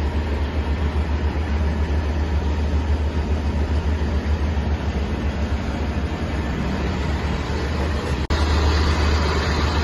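Diesel express passenger train standing at the platform with its engine idling: a steady low rumble and hum, broken for an instant about eight seconds in.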